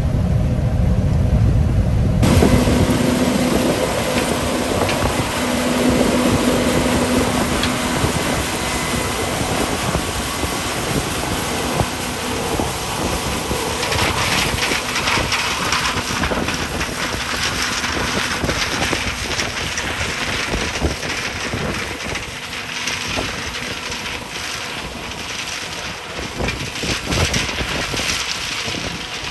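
Combine harvester running while harvesting corn: a steady mechanical drone with a constant hum. From about halfway through, a busier rattling grows louder.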